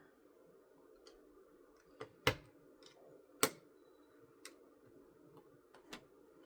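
Plastic LEGO pieces clicking as they are handled and pressed into place: two sharp clicks a little over a second apart, with a few fainter taps.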